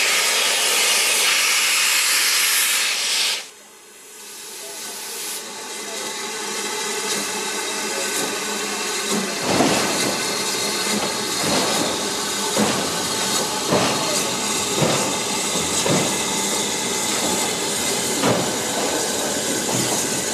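BR Standard Class 9F steam locomotive No. 92214: a loud steam hiss from around the cylinders cuts off suddenly about three seconds in. Then, about nine seconds in, slow, even exhaust beats begin at roughly one a second as the engine moves off at walking pace.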